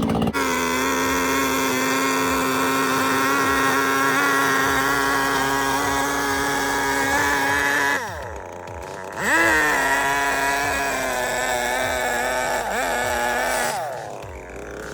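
A small engine running fast and steady at one pitch. About 8 seconds in the throttle eases off and the pitch drops, then it revs straight back up. Near the end it drops off again.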